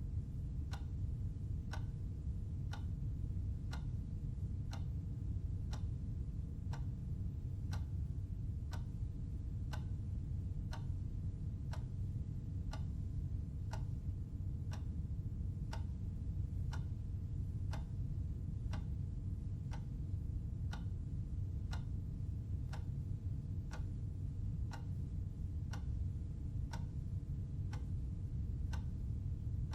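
Clock ticking steadily, evenly spaced ticks over a steady low hum.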